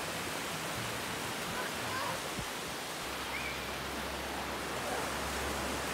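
Steady rush of small ocean waves breaking and washing up a sandy beach, with faint distant voices now and then.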